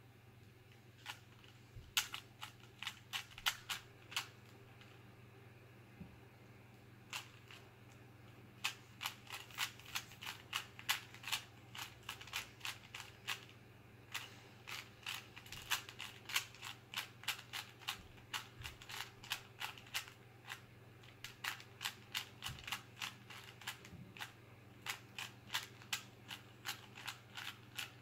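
Plastic 3x3 Rubik's Cube being turned by hand: quick runs of light clicks as the layers snap round, broken by short pauses.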